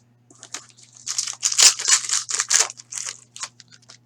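Wrapper of a trading-card pack being torn open and crinkled by hand: a run of crackling and tearing, loudest in the middle.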